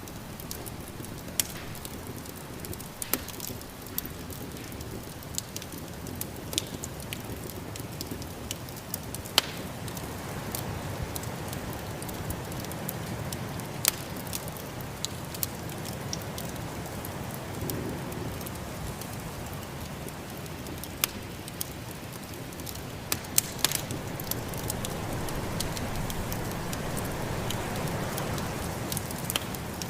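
Wood fire crackling, with scattered sharp pops, over the steady rush of snowstorm wind that swells and eases twice.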